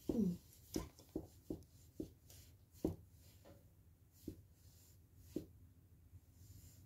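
A short downward-gliding squeak at the very start, then about seven soft, separate taps or knocks at uneven intervals over the next five seconds.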